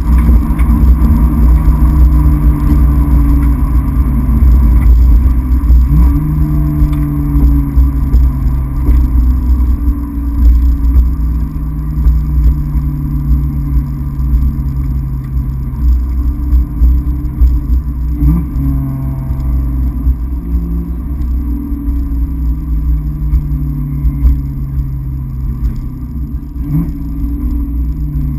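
1997 Ford Mustang Cobra's 4.6-litre DOHC V8 heard from inside the cabin while cruising, a steady exhaust drone over a heavy low rumble. The engine note changes pitch sharply three times, at gear changes of the manual gearbox.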